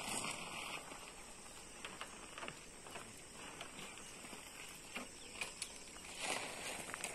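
Faint outdoor ambience: a steady thin high hiss with scattered small clicks and ticks.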